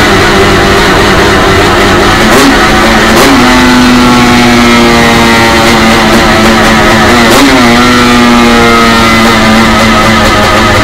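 2003 Honda CR250R's two-stroke single-cylinder engine with a custom expansion pipe, running loud at high revs on a chassis dyno. The pitch holds fairly steady, with quick throttle changes about two, three and seven seconds in.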